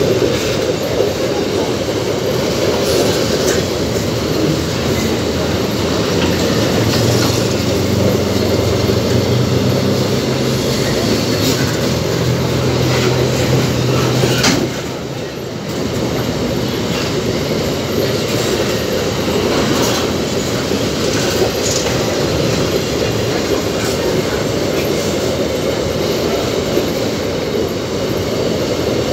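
Empty GDT gondola ore wagons rolling past close by: a steady loud rumble of steel wheels on rail with repeated clickety-clack as the wheelsets pass over rail joints, easing briefly about halfway through.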